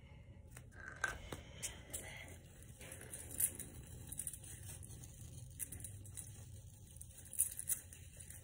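Faint rustling with scattered light clicks and taps as someone moves about and handles things close to the microphone, over a low steady room hum.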